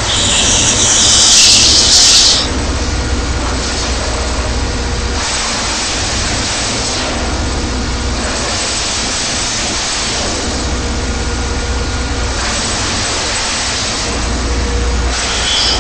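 Diesel mobile wood chipper running with a steady low engine rumble and a loud, harsh burst over the first two seconds, then a rising and falling hiss of the machine at work.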